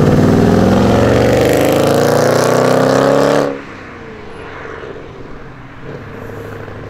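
AMG-badged Mercedes-Benz E-Class coupé accelerating hard, its engine note climbing steadily in pitch for about three seconds. It then cuts off sharply, leaving a faint steady engine sound as the car pulls away.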